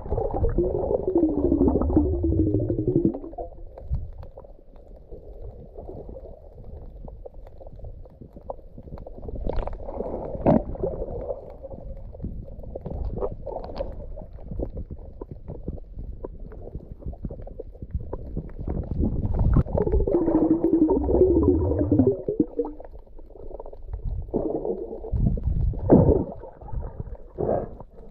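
Muffled underwater sound from a camera held beneath the surface: water moving and gurgling, with two louder wavering, bubbling stretches, one at the start and one about twenty seconds in, and faint scattered clicks between.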